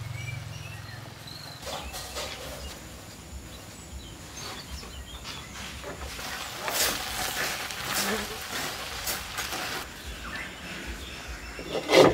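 Terracotta clay pots, lids and plates being handled on a wooden counter: light knocks and scrapes over a faint rural outdoor background, with a sharper knock near the end as a clay piece is set down.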